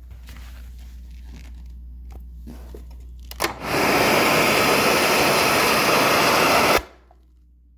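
Allegro Champion MUA50 central vacuum sucking air. After a click about three and a half seconds in, a loud, even rush of suction starts, runs for about three seconds, then cuts off abruptly.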